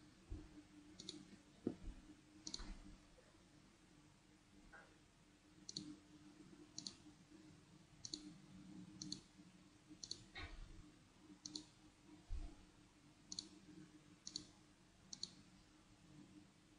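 Computer mouse button clicking faintly: about a dozen single clicks at uneven gaps of a second or so, over a faint steady low hum.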